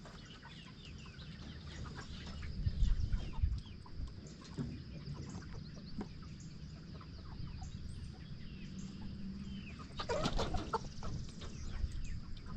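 A flock of chickens clucking and chirping, with a louder flurry of calls about ten seconds in. Low bumps and handling noise, loudest a few seconds in.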